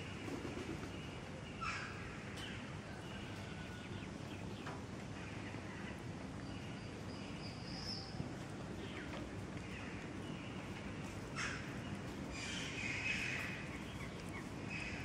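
Outdoor ambience with a steady background hiss and scattered short bird calls, some of them harsh, crow-like caws, including a short rising whistle about halfway through and a louder call near the end.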